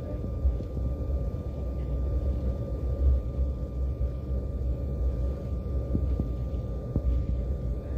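Airliner cabin noise while taxiing: a steady low rumble of the jet engines and the wheels rolling on the taxiway, with a thin steady whine above it and a couple of light knocks near the end.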